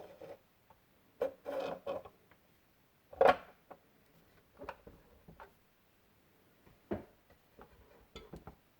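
Handling noises from a 1:18 scale diecast model car and its packaging: scattered clicks, taps and brief rustles. The loudest knock comes about a third of the way in.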